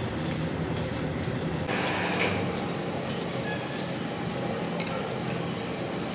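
Machine-shop machinery running with a steady low hum, with a few light metallic clinks and a short scraping rush about two seconds in.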